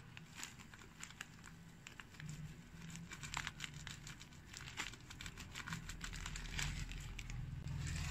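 Irregular crackling and pattering from a frying pan of teriyaki sauce as a stream of granules is poured in, with a low hum underneath that grows louder near the end.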